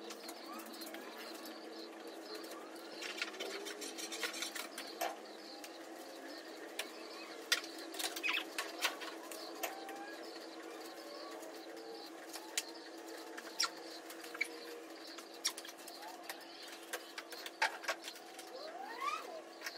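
Soft, bendy trim strip being pulled by hand out of an old car's windscreen rubber seal: scattered sharp clicks, short squeaks and rubbing, busiest in the second half, over a steady hum.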